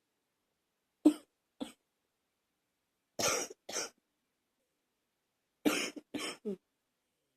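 Coughing in short bouts: two single coughs about a second in, a double cough around three and a half seconds, and a quick run of three coughs near six seconds, with silence between the bouts.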